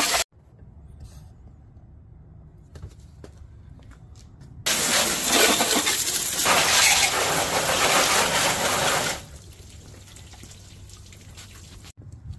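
Water hissing from a garden hose spray nozzle in a steady jet, starting suddenly about a third of the way in, running about four and a half seconds, and cutting off.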